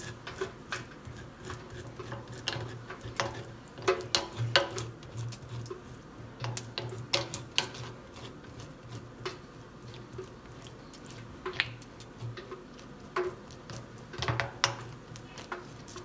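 Uncapping fork's metal tines scraping and scratching through the wax cappings of a honey frame in short, irregular strokes, with a low hum underneath.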